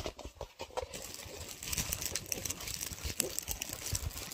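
A rolled diamond-painting canvas and its plastic cover film crinkling and rustling as it is handled and unrolled, a dense run of small crackles that thickens about a second in.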